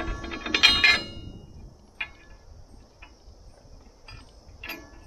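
Steel mower blade clinking and ringing against the steel blade disc as it is fitted back on: a quick run of metallic clanks in the first second, then a few lighter clicks about two seconds in and near the end.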